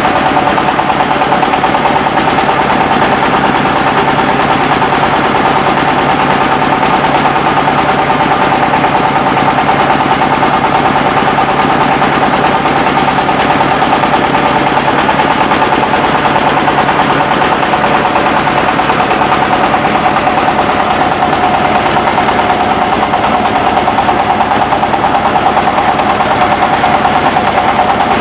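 Mobile rice-milling machine running steadily, with a loud, rapid rattle and a steady whine.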